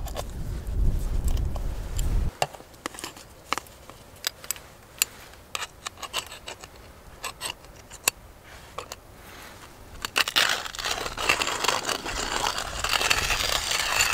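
Scattered small clicks and rattles of coffee beans being handled, then a steady gritty scraping from about ten seconds in, as a handful of beans is ground for one cup of coffee. A low rumble sits under the first two seconds.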